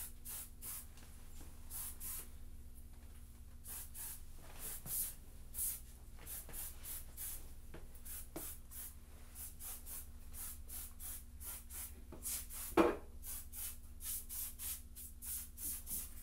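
Aerosol insecticide can sprayed in many short, quick hisses into cabinet cracks and crevices as a German cockroach treatment, the bursts coming faster in the last few seconds. A steady low hum runs underneath, and there is a single knock about 13 seconds in.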